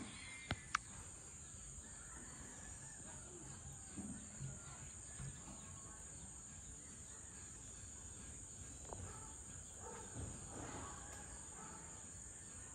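Steady, high-pitched chorus of insects in tropical vegetation, with two sharp clicks about half a second in that are the loudest sounds, and a few faint distant sounds now and then.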